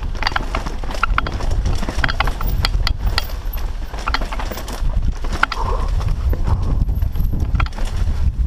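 Mountain bike descending a rough dirt trail: irregular sharp knocks and rattles over the bumps, over a steady low rumble.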